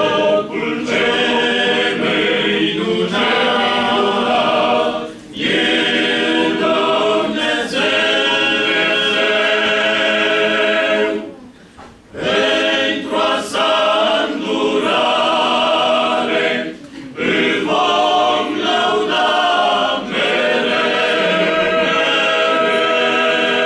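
Men's choir singing a hymn a cappella in several parts, holding full chords, with brief pauses between phrases about 5, 11 and 17 seconds in.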